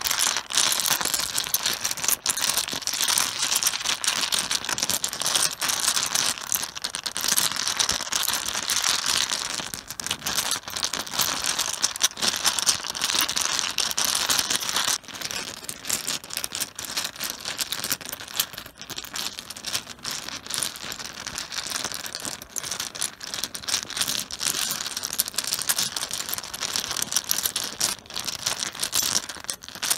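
Mahjong tiles being shuffled by hand on a cloth-covered table: a dense, continuous clatter of many tiles knocking together and sliding over the cloth.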